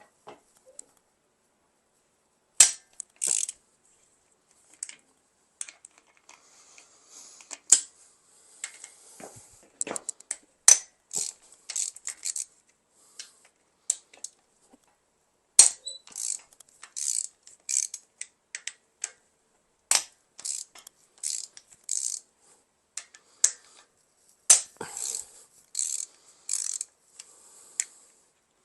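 Ratchet wrench clicking in short runs on the 17 mm bolts of a Mazda 13B rotary engine being loosened, with scattered sharp cracks and metal clinks between pauses.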